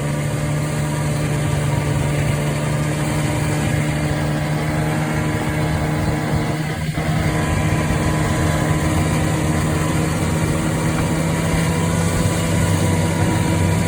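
Arctic Cat Puma snowmobile's fan-cooled two-stroke engine running at a steady speed, with a brief dip about halfway through.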